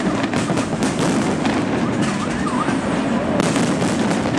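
Fireworks going off: a dense, rapid string of bangs and crackles.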